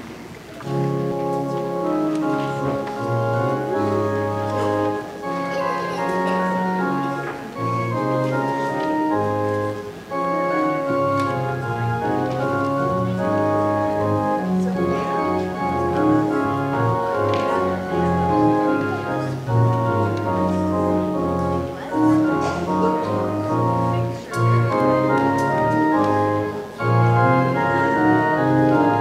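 Organ playing the gathering hymn in held chords that change every second or so.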